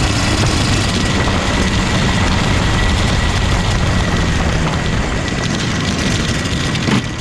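Racing kart's 125cc two-stroke TAG engine running steadily as the kart drives, heard onboard under a constant rush of noise, with a steady thin whine. A single sharp click comes near the end.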